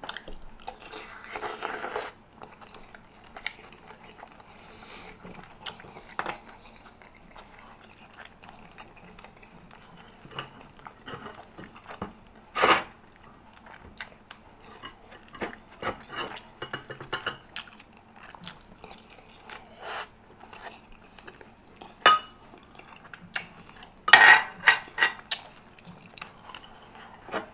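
Close-up chewing of rotisserie chicken, with scattered sharp clicks of a metal fork and dishes, several in quick succession near the end.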